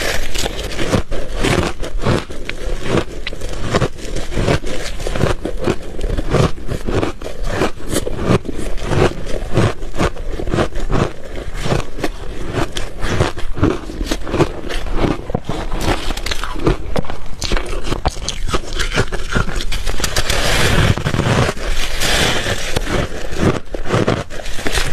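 Refrozen ice being bitten and chewed close up: a dense, continuous run of loud, sharp crunches and cracks.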